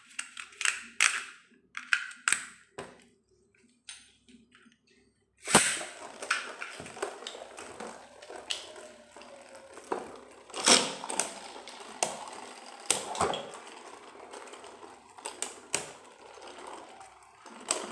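Plastic clicks as a Beyblade is fitted to its launcher. About five and a half seconds in comes the launch: Beyblade spinning tops (Bloody Longinus and Achilles) land in the cardboard stadium and spin with a steady rattle, broken by repeated sharp clacks as they collide.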